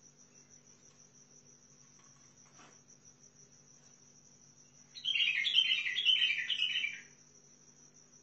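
A white-eared bulbul sings a short, loud phrase of about five quick repeated notes about five seconds in, lasting some two seconds. A steady, high insect trill runs underneath throughout.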